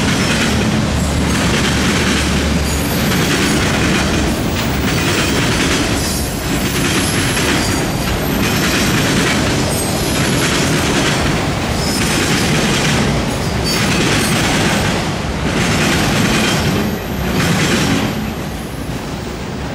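Autorack freight cars rolling past at speed: steady wheel-on-rail noise with a burst of wheel clatter about every second and a half, as each car's trucks cross the railway diamond. The sound falls away near the end as the last car passes.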